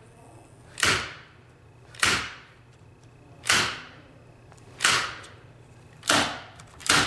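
Staple gun firing six times, about one shot every second and a quarter, driving staples through carpet along the edge of a stair step.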